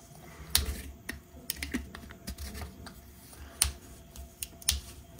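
Irregular light clicks and knocks of a red 3D-printed plastic lid wrench being fitted and handled against the cap and glass bottle of a Kikkoman soy sauce dispenser, about a dozen in all, the loudest about three and a half seconds in and again near the end.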